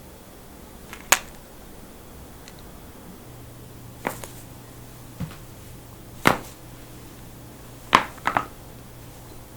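A person cracking their own joints: a series of sharp cracks and pops, one loud crack about a second in, several more spaced a second or two apart, and a quick triple pop near the end.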